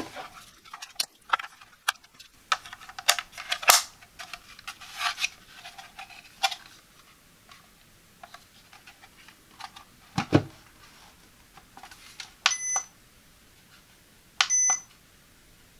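Hands handling a plastic Accuteck digital postal scale: a run of clicks, taps and rustles, and one low thump a little past the middle as it is set down. Near the end the scale gives two short electronic beeps as its front buttons are pressed.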